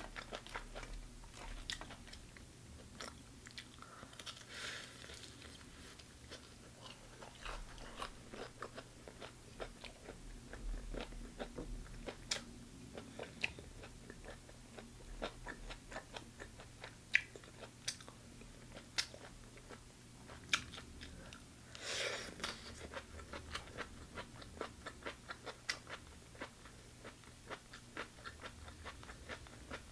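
Close-miked chewing of chicken gizzards: many small crisp clicks and crunches at an irregular pace, with a couple of brief hissy sounds about four seconds in and again past twenty seconds.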